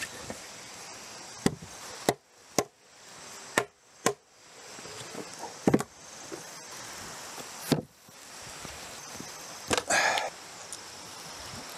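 Heavy wooden sawhorses being knocked about and set down on concrete: a series of sharp wooden clunks, about seven in the first eight seconds, then a longer, louder rasp of wood on wood about ten seconds in as a log is laid across them.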